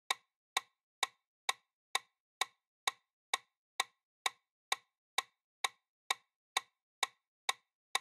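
Steady clock-like ticking of a quiz countdown timer sound effect, about two ticks a second.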